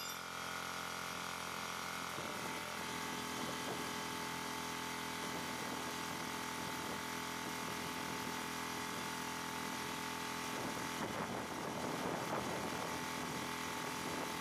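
Steady motor whine with a hiss, like a power tool running; its tone shifts about two seconds in.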